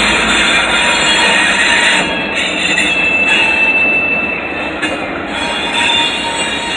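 Freight train with Florida Gulf & Atlantic diesel locomotives and hopper cars rolling past close by: a steady rumble and grind of steel wheels on rail. A thin high wheel squeal comes in about halfway through.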